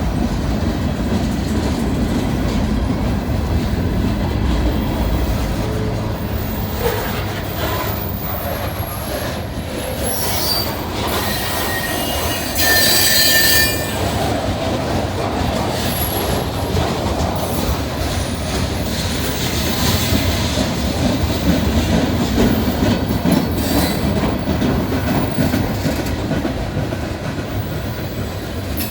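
Freight train cars rolling past with steady wheel rumble and thin, high flange squeals. About 13 s in, a louder squeal lasts about a second.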